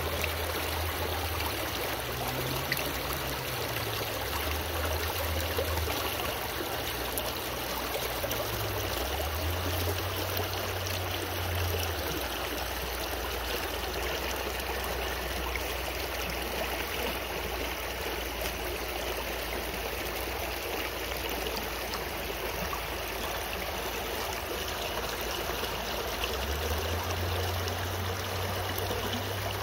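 Shallow rocky stream flowing steadily over stones, an even rushing and burbling of water.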